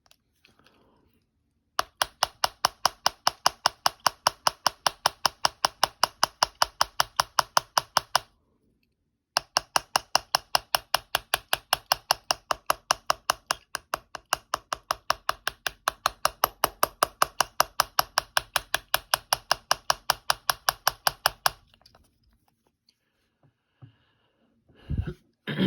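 A rapid, very even run of sharp clicks or taps, about five a second. It starts about two seconds in, breaks for about a second, then runs on for about twelve seconds more before stopping.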